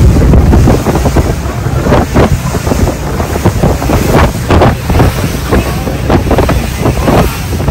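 Wind buffeting the microphone over a steady low rumble as a fast boat runs over open sea, with repeated splashes of spray off the hull.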